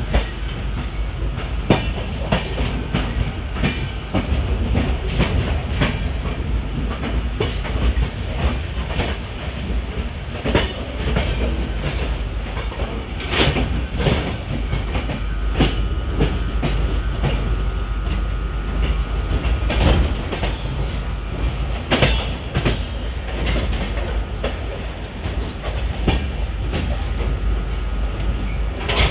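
Gujarat Sampark Kranti Express running, heard from an open coach doorway: a continuous deep rumble and rushing air, with frequent irregular clacks of the wheels over rail joints.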